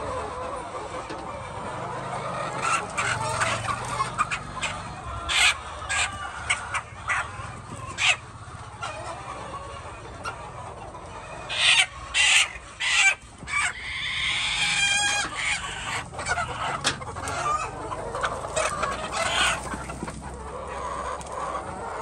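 A flock of chickens clucking and squawking, with a run of loud, sharp calls about halfway through and a longer drawn-out call just after them.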